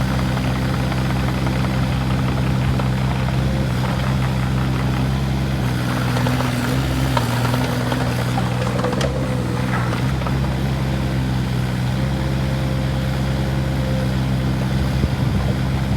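Volvo EC15E mini excavator's diesel engine running steadily, with a few light clicks about seven to nine seconds in.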